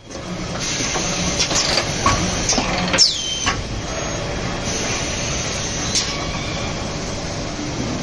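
Automated plastic-cup packaging machine running: a steady mechanical din with repeated clacks and knocks. The sharpest clack comes about three seconds in, with a brief falling whine, and another comes near six seconds.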